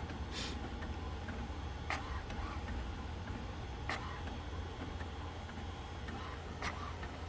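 HP OfficeJet Pro 8710 inkjet printer printing a printhead alignment page: a low steady hum with four short, sharp clicks spaced a couple of seconds apart.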